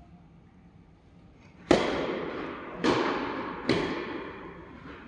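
Tennis balls struck by rackets in a rally: three sharp hits about a second apart, starting nearly two seconds in, each echoing for about a second.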